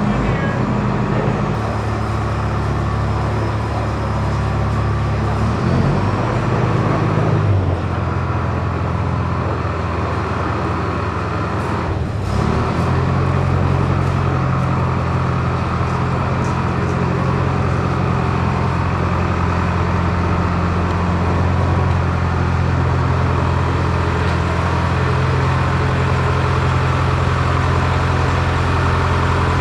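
Cat D4H crawler dozer's diesel engine running steadily, its note changing pitch a few times: about two seconds in, again near eight seconds and again near twelve seconds.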